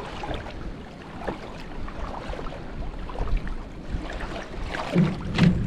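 Wind buffeting the microphone over water moving around a wader's legs in shallow saltwater, with scattered small splashes. About five seconds in come a couple of louder knocks and splashes as a flounder gig is thrust into the water.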